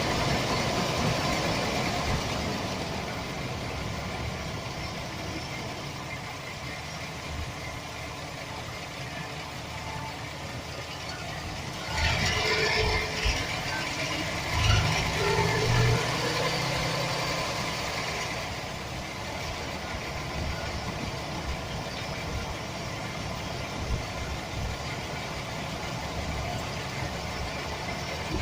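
Chevy Express 4.3 L V6 engine idling with a rattle that the owner puts down to a bad starter motor gear bumping against the flexplate. It gets louder for several seconds in the middle.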